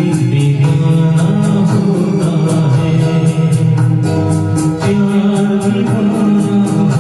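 Hindi film song with singing over sustained instrumental backing and a steady, quick percussion beat of about four ticks a second.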